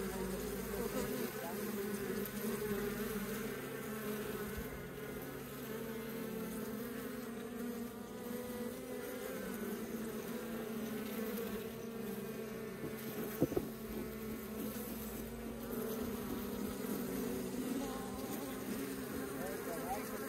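Honeybees buzzing steadily around an opened hive and a comb frame lifted out for inspection, with one brief knock about halfway through.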